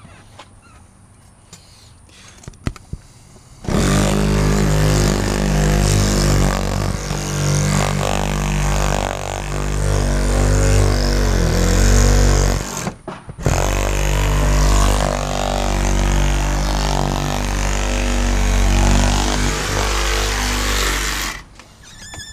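A power tool running under load in two long runs, starting abruptly a few seconds in and briefly stopping about halfway through, as a powered cut-out tool cuts through the old windshield urethane.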